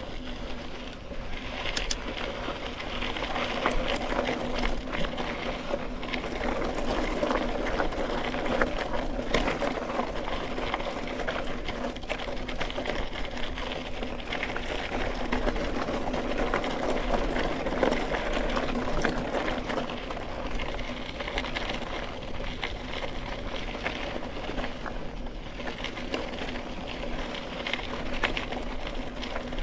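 Mountain bike riding over a dirt singletrack: tyres rolling on dirt and gravel, with a continuous fast clatter of chain and drivetrain rattle.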